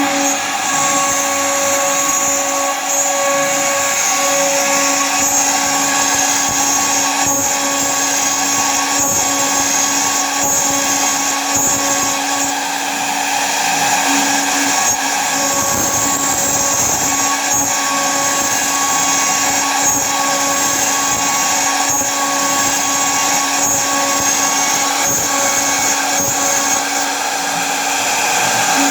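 Servo-driven CNC router with a 3100 x 2100 mm table, running: a steady whine in several tones over constant machine noise.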